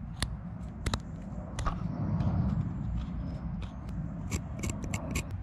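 Carving knife making small push cuts into wood: a series of short, sharp cutting clicks and scrapes, more of them close together near the end, over a low rumble that swells about two seconds in.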